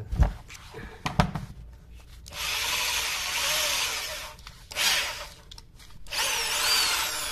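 Two handling knocks, then a corded electric drill's motor run in three short bursts: about two seconds, a brief blip, then a last run that winds down with a falling whine at the end. The newly fitted keyless chuck is gripped by hand while the drill runs, which tightens it onto its spindle.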